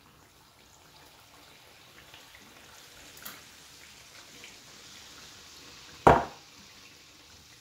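Faint sizzling and bubbling of hot oil as handesh batter deep-fries in a small pan. A single sharp knock about six seconds in.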